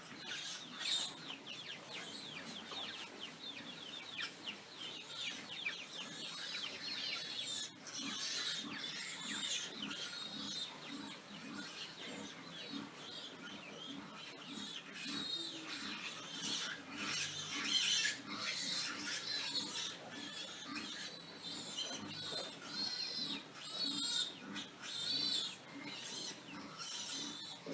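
Pigs squealing and screaming, many shrill overlapping calls with grunting underneath.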